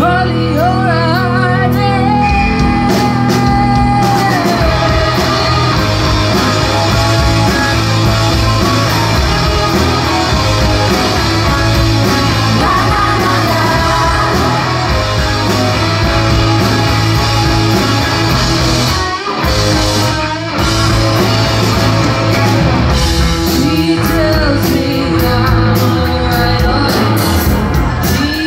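A rock band playing live: electric guitars, bass guitar and drum kit, with a woman singing lead. The full band with drums comes in about four seconds in, with a short break in the beat near the middle.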